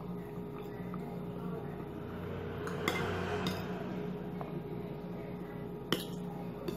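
Metal spoon scraping and clinking against a ceramic bowl while scooping curry, with a few sharp clinks, the loudest about six seconds in, over a steady low hum.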